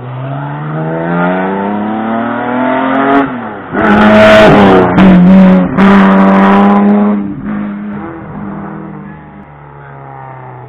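A hillclimb race car's engine under hard acceleration, rising in pitch as it approaches, very loud as it passes close, with two brief breaks in the sound near the loudest point, then fading away up the road.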